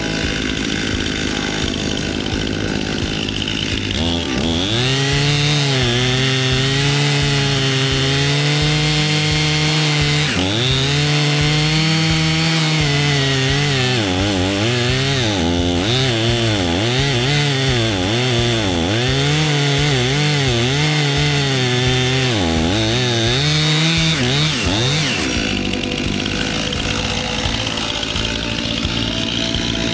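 Stihl two-stroke chainsaw cutting wood. It revs up about four seconds in and runs at high speed until about 25 seconds, its pitch dipping and recovering again and again as the chain loads in the cut, then drops back to a lower speed.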